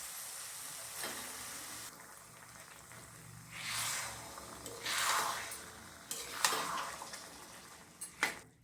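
Cabbage and moong dal sizzling in masala in a frying pan while being stirred: a steady sizzle, with two louder swells of stirring about four and five seconds in. A few sharp clicks come in the second half.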